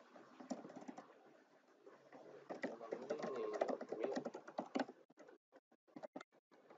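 Computer keyboard typing. There are a few keystrokes about half a second in, then a quick run of keystrokes from about two and a half to five seconds, then single, spaced-out keystrokes near the end.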